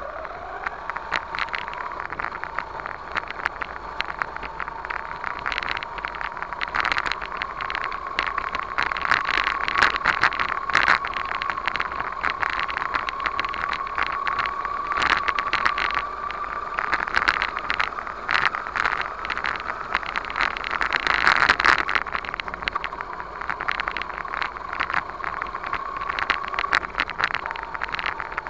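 1/10-scale RC monster truck driving over dirt and gravel, heard from a camera mounted on it: a steady high whine that slowly rises in pitch, with constant crackling and rattling clicks from the wheels and chassis.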